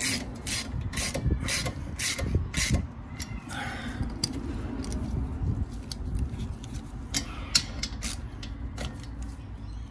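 Ratchet wrench clicking as a bolt in the rotor's threaded removal hole is turned: about two strokes a second for the first three seconds, then slower, irregular clicks.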